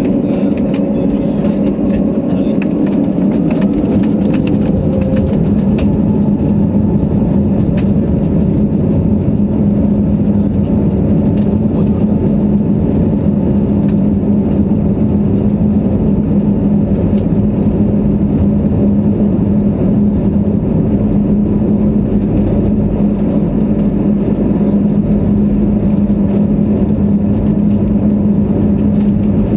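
Airliner engines heard from inside the passenger cabin: a loud, steady drone with a constant low hum over a rumble.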